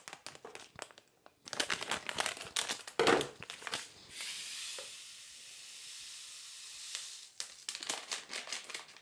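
A plastic packet crinkling and rustling, then a steady hiss of dry crystals being poured into a saucepan for about three seconds, then more crinkling.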